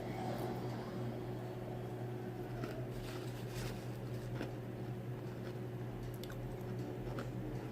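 A person chewing food close to the microphone: soft, scattered wet mouth clicks over a steady low hum.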